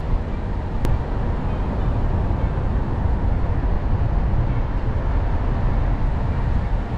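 A car driving along a paved road: a steady low rumble of tyres and engine, heard from inside the cabin. There is one brief click about a second in.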